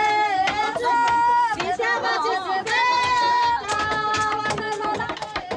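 Voices singing a melody of long held notes that slide from one pitch to the next, over sharp taps and knocks.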